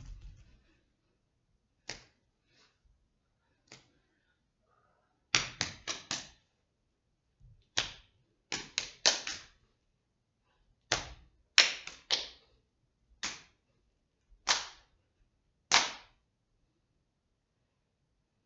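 A dancer's sharp hand slaps in an uneven rhythm: single strikes mixed with quick runs of three or four, about eighteen in all.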